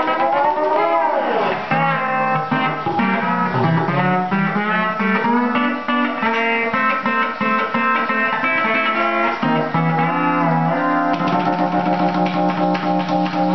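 Electric steel guitar played with a bar: plucked chords and single notes that slide in pitch, with a swoop down and back up in the first couple of seconds and a long held chord near the end.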